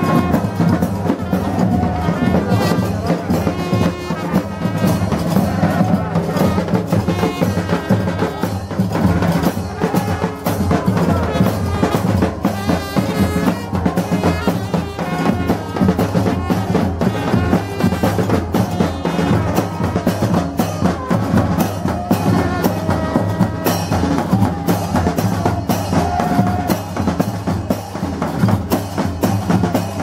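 Marching band playing: field drums and a bass drum beaten in a steady, quick rhythm, with trumpet and saxophone playing over them.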